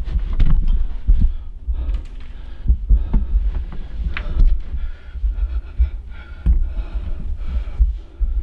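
Wind gusting over the microphone in a snowstorm: a heavy, uneven low rumble that swells and drops throughout, with a few small knocks.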